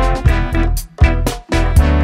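Background music with a steady beat and sustained instrumental notes.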